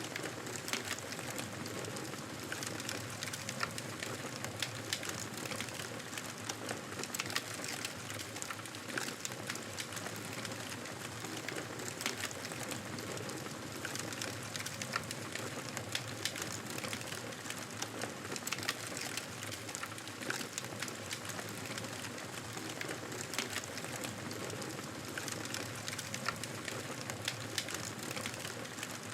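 Wood fire burning: a steady hiss dotted with many small crackles and pops.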